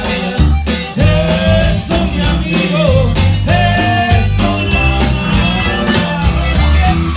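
Live band music: a man singing lead into a microphone over acoustic guitar and drum kit, with a steady beat.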